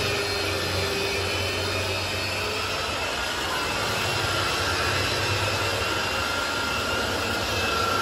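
Electric rotary car polisher running steadily with a whine, its foam pad spinning polishing compound over fresh car paint; the pitch wavers slightly as the pad is pressed and moved across the panel.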